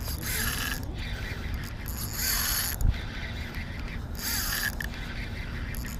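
KastKing Kodiak 3000 spinning reel being cranked to bring in a hooked fish, its gears and line roller whirring in short spells about every second or two. A short low thump comes near the middle.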